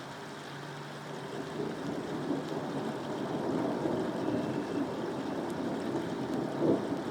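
Steady rain with a low rumble of thunder that builds from about a second and a half in and grows louder toward the end.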